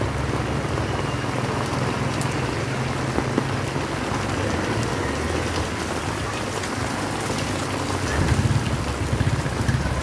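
Heavy rain falling on a street and pavement, a dense steady hiss of drops. A low rumble from passing traffic sits underneath, strongest at the start and swelling again near the end.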